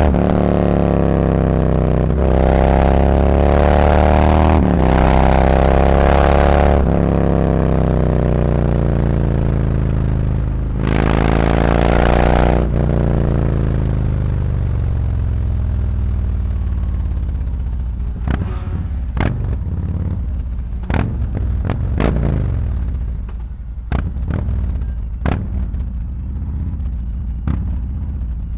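Harley-Davidson Road Glide's V-twin engine through SuperTrapp 4-inch slip-on mufflers, its revs falling away in a few long sweeps, rising briefly near the middle, then settling to a lower, uneven run with a string of sharp ticks in the second half.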